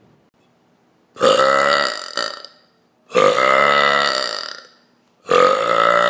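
A woman burping loudly three times in a row, each burp long and drawn out, over a second, with short gaps between. The third is still going at the end.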